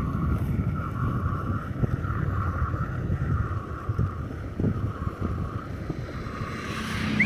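Wind buffeting the microphone, a low rumbling noise, over a steady mid-pitched whir that swells and fades in a regular rhythm. A short rising chirp comes at the very end.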